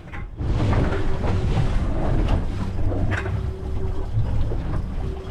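Wind buffeting the microphone over water and boat noise on a fishing boat, a steady low rumble with a few light knocks.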